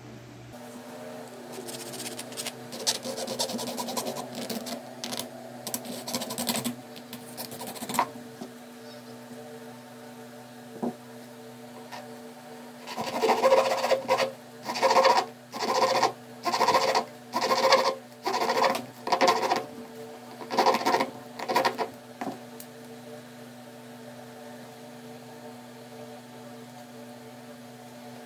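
Clear plastic pen barrel being cut through with a thin blade. Light scraping and handling in the first few seconds, then about a dozen rasping back-and-forth strokes, a little over one a second, from about halfway in. A steady low hum runs underneath.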